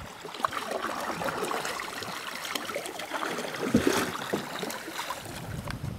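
Canoe paddles dipping and pulling through the water, with steady small splashing and trickling and one louder splash about four seconds in.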